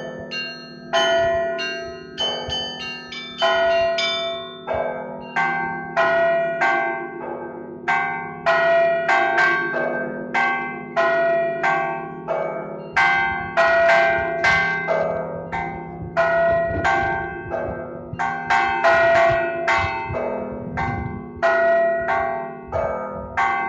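Church bells rung as a Christmas peal: quick, rhythmic strikes on the smaller, higher bells over the lingering hum of the larger, deeper bells.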